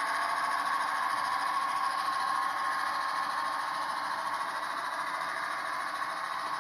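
Model grain train of hopper and box wagons rolling along the layout's track: a steady whirring rattle of small wheels on rail.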